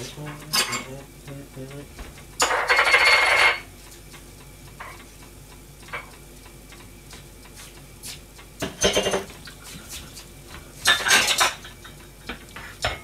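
Kitchen clatter: dishes, pans and utensils being handled, with several separate bouts of clinks and rattles. About two and a half seconds in there is a loud rush of noise lasting about a second.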